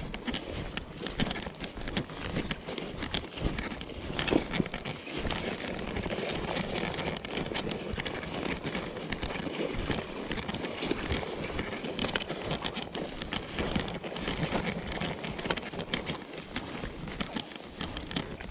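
Footsteps and rustling as a person walks quickly through dry tall grass and brush, stalks and twigs crackling against legs and clothing, steady throughout.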